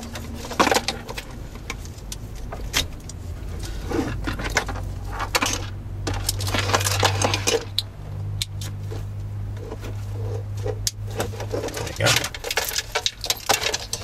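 Plastic wiring-harness connectors and wire bundles handled against the back of a car radio: repeated clicks, taps and rattles as the plugs are pulled and pushed home. A low steady hum comes in for several seconds in the middle.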